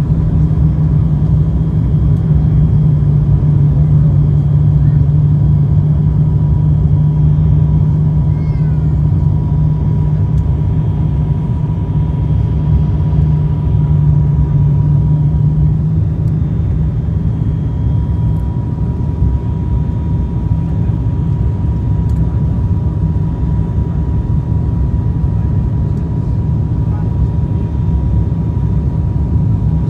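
Steady cabin drone of an ATR turboprop airliner's engines and propellers during descent on approach to landing, heard from inside the passenger cabin: a deep, even hum with a faint steady high tone above it.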